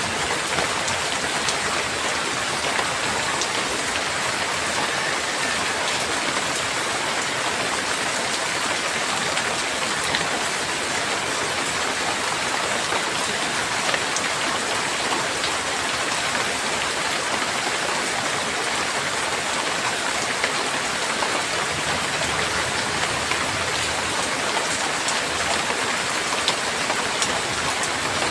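Heavy rain falling steadily, a dense even hiss with scattered sharper drop impacts.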